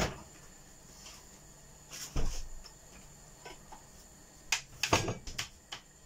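Kitchen handling clatter: a knock at the start, a heavier thump about two seconds in, and a quick run of clacks and knocks near the end, like utensils and kitchenware being set down and a cupboard shutting.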